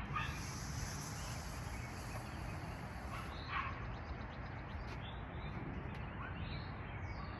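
Outdoor background noise with a steady low rumble and a few faint, short bird chirps in the second half.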